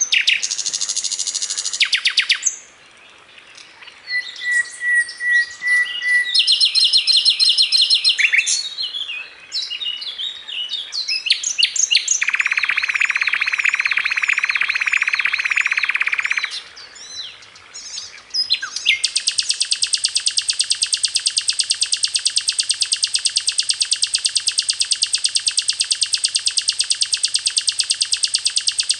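A songbird singing a varied song of rapid trills and chattering phrases, then one long, even, very fast rattling trill lasting about ten seconds to the end.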